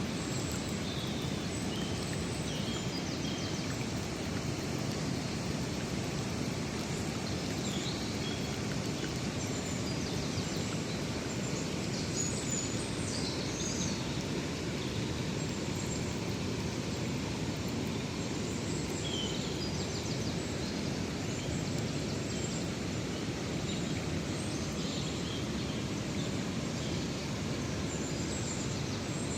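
Steady low outdoor rushing ambience with scattered short, high bird chirps.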